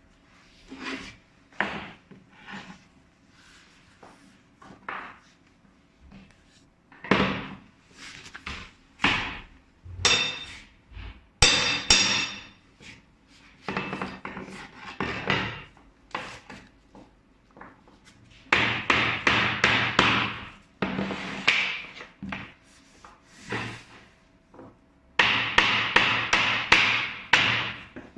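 Hammer striking wood in irregular blows, with quick runs of strikes about two-thirds of the way through and again near the end. A few blows around a third of the way in ring with a metallic tone.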